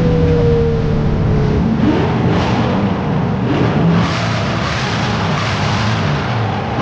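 Racing engines running at high revs, loud and continuous, with a whine falling in pitch over the first second and a half.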